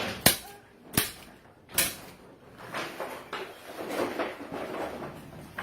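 Staple gun firing three times, about a second and less apart, stapling fiberglass batt insulation along its edge, followed by softer, irregular handling noise.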